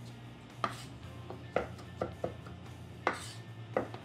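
Chef's knife mincing fresh figs on a wooden board: a run of irregular, sharp chopping knocks, a couple to the second.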